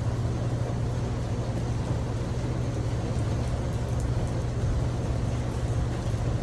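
Steady rain falling on a tin porch roof: an even hiss with a steady low hum underneath.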